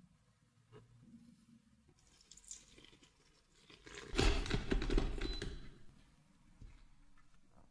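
Water poured from a small glass jug into a stainless steel pot of flour, splashing for about a second and a half. Before it, faint scraping and tapping of a plastic scraper in the flour.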